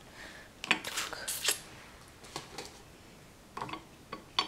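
Light clinks and taps of dishes and cutlery being handled and set in place: several in the first second and a half, a few more near the end.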